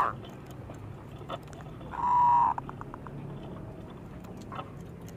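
Zebra dove giving one short held coo about two seconds in, trailed by a few quick clicks, over low background hiss.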